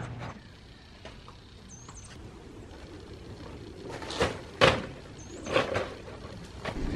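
Stitch-and-glue plywood dinghy hull being handled and set down onto folding sawhorses: a few knocks and thumps, the loudest about four and a half seconds in.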